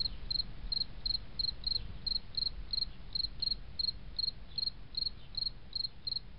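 Steady insect chirping, cricket-like, about three short high chirps a second over a low rumble.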